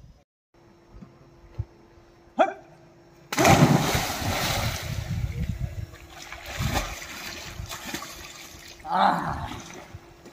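A person plunging into the water of an open well, a sudden loud splash about three seconds in, followed by water churning and splashing as he swims, with further splashes near the end.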